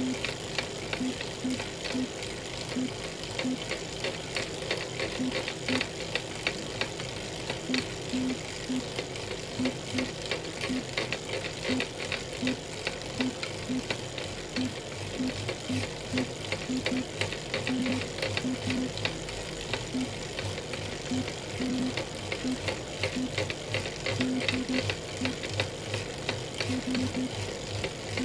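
Elite Real Turbo Muin B+ direct-drive fluid trainer running under pedalling, a steady whir with irregular sharp cracking clicks, several a second. This is the cracking the trainer makes at any cadence once the rider's power goes above about 200 watts.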